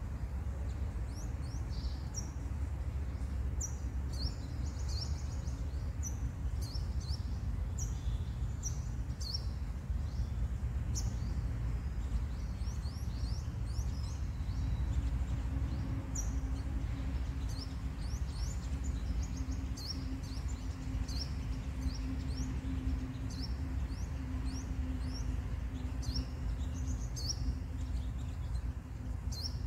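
Sunbirds chirping: rapid, high, thin chirps repeated throughout, over a low outdoor rumble. A steady low hum comes in about halfway through and fades near the end.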